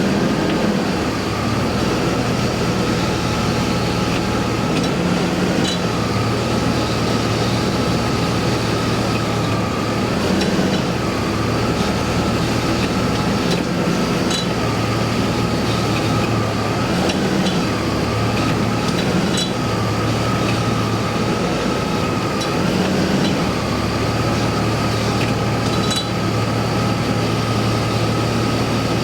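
BMW E39 530i straight-six idling while the automatic gearbox is shifted between gears, the engine's hum changing with each selection, with short metallic tinkling clinks every few seconds. The tinkle came from a worn driveshaft centre support bearing and guibo (flex disc).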